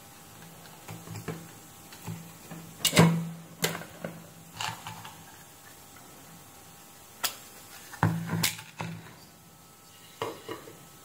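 Sharp clicks and knocks from handling a thermostat's circuit boards by hand. Wires are pulled from the screw terminal block, the boards are gripped, and the board is set down on the bench mat. The loudest knock comes about three seconds in, with a quick cluster of clicks around eight seconds.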